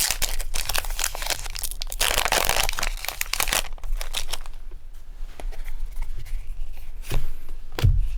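Foil wrapper of a Pokémon booster pack crinkling and tearing open for the first three and a half seconds, then quieter handling, with two dull knocks near the end.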